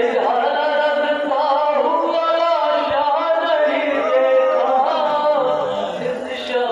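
A crowd of men chanting together, a Muharram mourning chant, with several voices overlapping in long, held lines.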